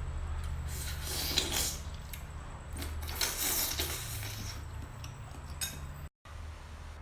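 Cutlery scraping and clinking against a dish while eating, in two short spells, over a steady low hum.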